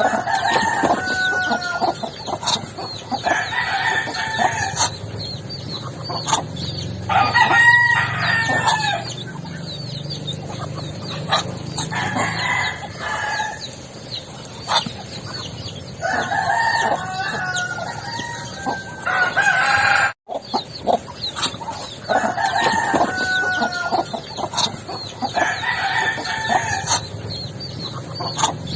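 Roosters crowing again and again, each crow a drawn-out call of a second or two, with small birds chirping throughout. The sound cuts out for an instant about two-thirds of the way through.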